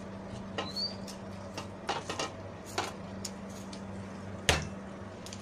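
A few light clicks and knocks, then one sharp thud about four and a half seconds in: a hard-packed ball of cooked rice dropped onto the floor.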